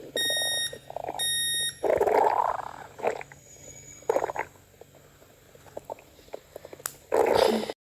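Two short electronic beeps about a second apart, then stomach growling in several noisy bursts, the loudest about two seconds in and near the end.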